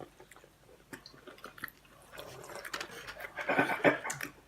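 A person chewing food close to the microphone, with small mouth and utensil clicks. A brief muffled voice-like sound comes about three and a half seconds in.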